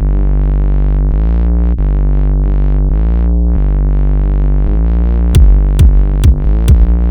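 Electronic music: a held synthesizer chord with a filter sweeping its brightness up and down, joined about five seconds in by drum-machine beats, about two a second.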